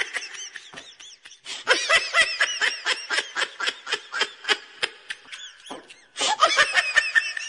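Rubber squeaky chicken toys squeezed over and over, giving a fast run of short squeaks that each rise and fall in pitch, about five a second, with two brief pauses.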